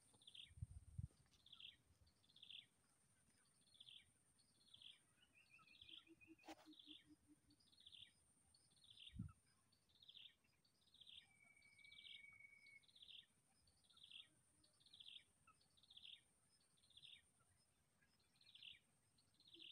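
Faint bird call repeated steadily: a short falling chirp about one and a half times a second, over a thin steady high-pitched hum.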